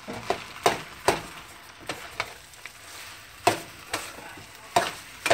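A metal spatula clacking and scraping against a nonstick skillet as rice and pork are stirred together, in irregular strokes over a soft sizzle from the pan.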